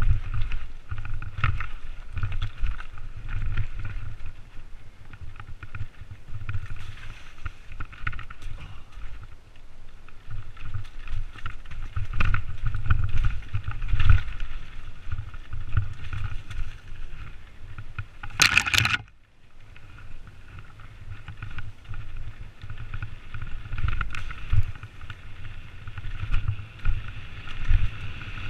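Hardtail mountain bike (Mondraker Vantage) riding fast down a rocky forest trail: tyres rumbling over stones, with the bike rattling and knocking over the bumps. A short, loud rasp about two-thirds of the way through.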